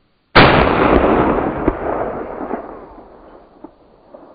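A single high-powered hunting rifle shot about a third of a second in, sharp and loud, followed by a long rolling tail that fades over about three seconds.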